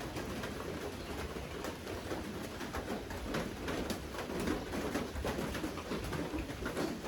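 Raindrops dripping and pattering steadily in many small separate ticks.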